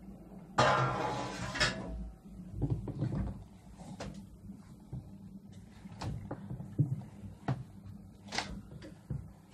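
Rustling of thin yufka pastry sheets being handled, loudest for about a second and a half near the start, followed by scattered light knocks and taps on the table.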